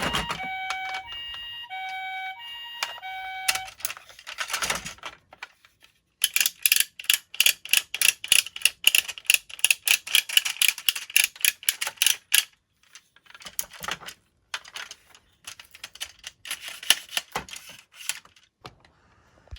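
A toy ambulance's electronic two-tone siren alternates for about three seconds and stops. Then small plastic toy cars rattle down a slope in a fast run of clicks, about six a second, followed by a few scattered clicks.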